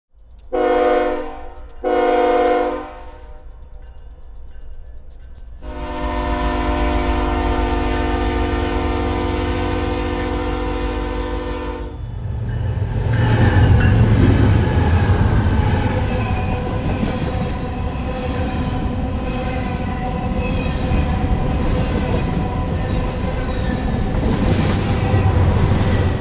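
Freight train diesel locomotive's air horn: two short blasts, then one long blast held for about six seconds. The locomotive then passes close by with a heavy engine rumble and the clatter of wheels over the rails.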